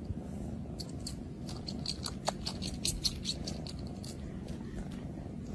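A calico cat purring steadily, with light, quick clicks scattered through the middle of the purr.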